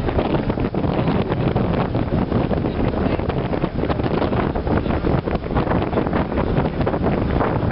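Wind buffeting the microphone on the deck of the riverboat MV Wairua under way, over a steady low rumble from the boat.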